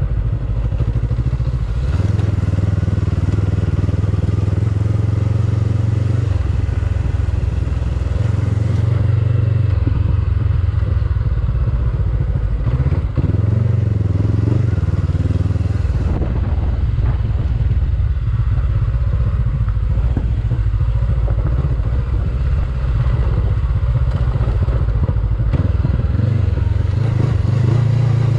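Honda CB500X's 471 cc parallel-twin engine running steadily under load as the motorcycle climbs a dirt and gravel hill track, its note shifting every few seconds.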